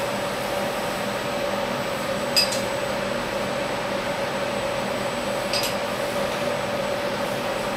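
Two sharp metallic clinks, about three seconds apart, from a hex wrench against the steel vise as its hold-down bolts on the CNC mill table are tightened. Under them runs a steady machine hum with a constant tone.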